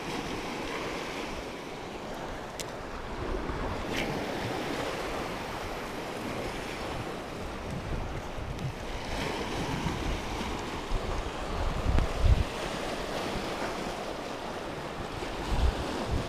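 Sea waves washing and breaking over a rocky shore, with wind buffeting the microphone in low gusts, the strongest about three-quarters of the way through.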